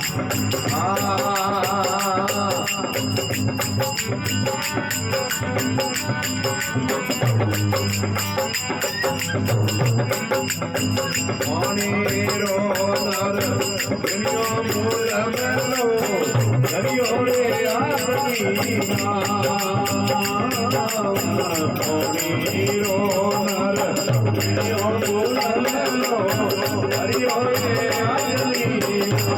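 Instrumental passage of Rajasthani folk devotional music: a steady, fast jingling and rattling percussion beat under a winding melody line.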